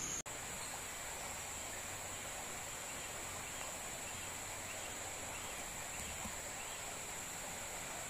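Steady high-pitched insect buzz from the forest canopy over a faint background hiss, with a few faint chirps in the middle.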